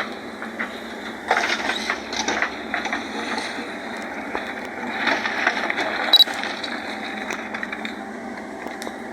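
JCB backhoe loader working on a road construction site: its engine runs under a steady noise with irregular clattering and scraping. The clatter thickens about a second in, and there is a sharp metallic clank near six seconds.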